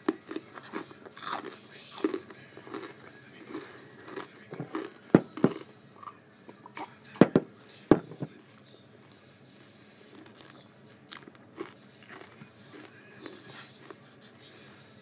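Close-up crunching of Triscuit crackers being bitten and chewed, in irregular crisp crunches. The loudest, sharpest crunches come between about five and eight seconds in, and the last several seconds hold softer chewing.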